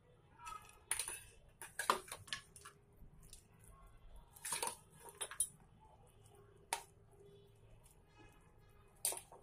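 A metal spoon scraping and clinking against a stainless steel mixing bowl and a serving plate as puffed-rice bhel is spooned from bowl to plate, in irregular scrapes and clinks, the sharpest about two seconds in.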